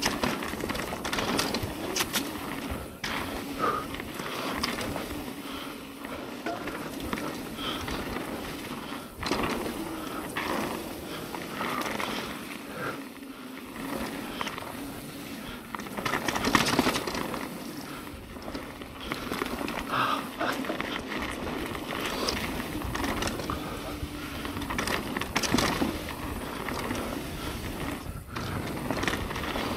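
Mountain bike riding along a dirt singletrack: continuous tyre noise with frequent knocks and rattles as the bike goes over bumps and roots.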